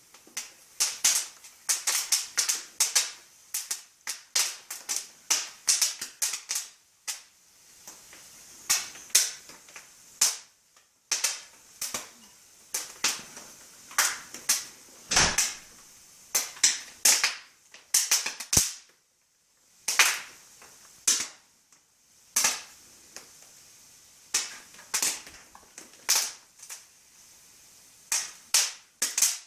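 Popcorn kernels popping in hot oil in a pan: sharp separate pops, several a second in the first third, thinning out to one every second or so in the later part.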